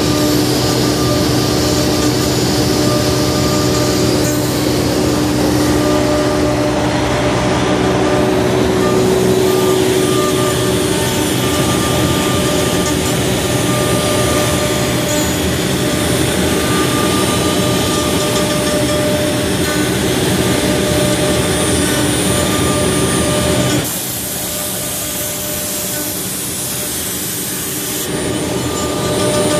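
CNC router spindle running steadily with its tapered carving bit milling into a block of wood: a continuous machine noise with a steady whine. About four seconds before the end it briefly turns thinner and hissier, with less low rumble.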